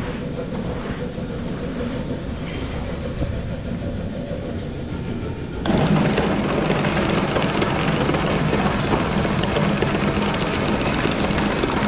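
Grain bin unloading auger machinery running steadily; a little under six seconds in it abruptly becomes much louder, with a steady low hum.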